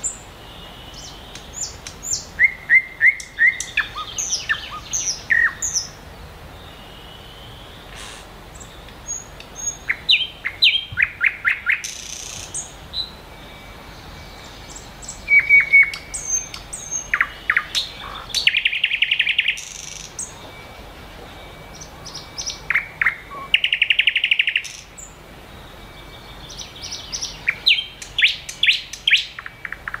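Small songbirds chirping and singing: bursts of quick, high chirp notes come every few seconds with short pauses between them. Twice in the middle a short, dense buzzy trill is heard.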